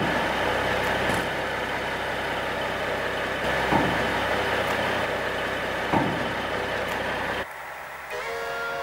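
Semi truck running with steady engine and road noise and a few brief knocks. The noise cuts off about seven and a half seconds in, and a few steady held tones follow near the end.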